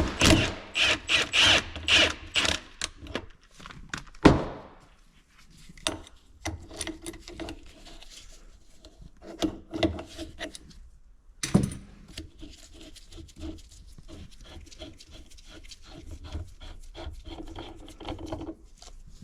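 A half-inch-drive wrench on a 17 mm socket tightens a flywheel puller on a 1985 Yamaha Tri-Z engine, with quick runs of metal clicking and scraping. About four seconds in there is one sharp, loud crack, typical of the flywheel breaking free of its crankshaft taper. After it come lighter, regular clicks as the puller is wound on, and another knock near the middle.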